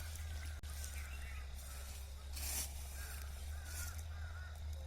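Faint bird calls: short warbling notes repeated several times, over a steady low hum.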